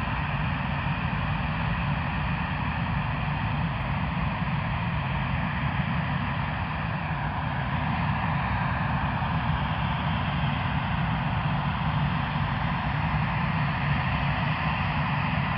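Airbus A319's twin jet engines heard from the ground as a steady rumble with a broad rushing hiss, growing slightly louder about halfway through.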